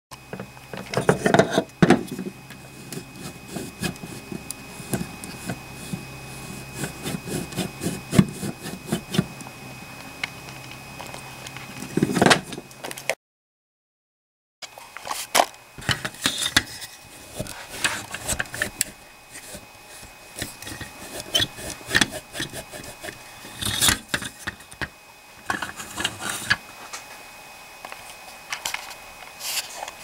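Hands handling the plastic and metal suspension bogie parts of a 1/6-scale Sherman tank model: irregular clicks, light knocks, scrapes and rattles as wheels and arms are moved and set down, over a faint steady high tone. The sound cuts out for about a second and a half a little before halfway.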